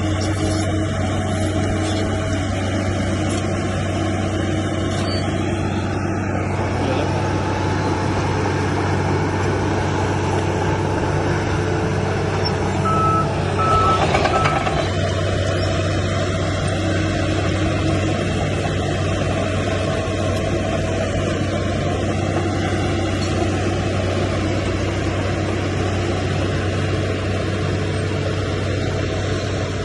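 Heavy diesel earthmoving machinery, a bulldozer at work, running steadily with a deep engine drone. A backup alarm gives three short beeps about halfway through and one more near the end.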